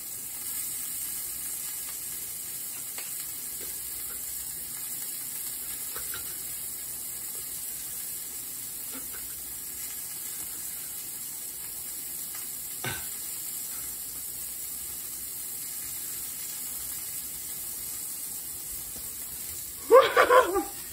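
Burger patties frying in a pan on a gas stove, a steady sizzle with one sharp click about thirteen seconds in. A loud burst of voice comes near the end.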